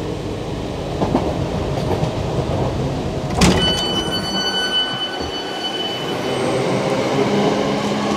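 Class 323 electric multiple unit running: the rumble of the train heard inside the carriage, then, after an abrupt cut about three and a half seconds in, the train alongside with a steady high whine for a few seconds over its running noise.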